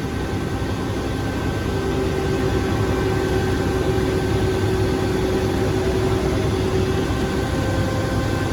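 Large mobile crane's diesel engine running steadily while it holds a heavy tree section. A steady whine joins in about two seconds in and stops shortly before the end.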